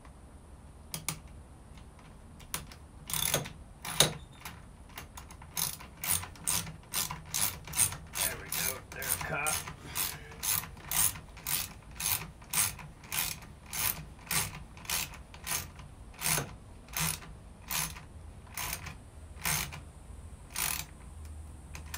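Ratchet wrench clicking as a bolt is tightened: a few scattered clicks at first, then a steady run of sharp clicks, about two or three a second, from about five seconds in until near the end.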